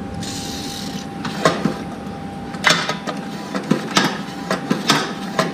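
Short hiss of an aerosol can of Fluid Film sprayed onto a snowblower linkage joint. Then the metal linkage clicks and clacks as it is worked back and forth, about once or twice a second, to spread the lubricant.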